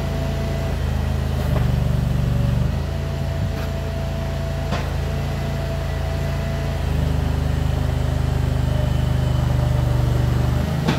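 Kanga mini loader's engine running under varying load as it works the dirt. Its note steps up twice, about one and a half seconds in and again past the halfway point, with a few faint clicks.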